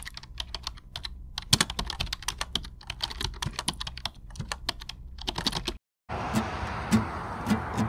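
Rapid, irregular clacking of typing on a keyboard that cuts off abruptly about six seconds in. After a short silence, a steady hiss follows, with a few sharp clicks and low thumps.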